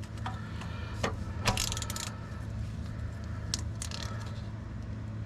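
Hand tools working the mounting bolts of a newly installed starter, giving scattered sharp metallic clicks and clinks as the bolts are rechecked for tightness. The clicks come singly and in a short cluster, over a steady low hum.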